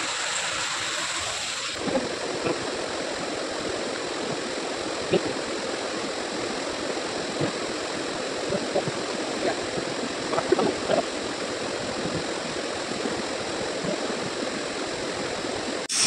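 Steady rush of a mountain stream running over rocks, with a few faint voices now and then.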